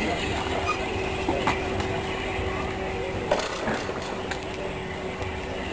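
Departing steam locomotive heard as a steady low rumble with a faint hum, with a few sharp clicks over it.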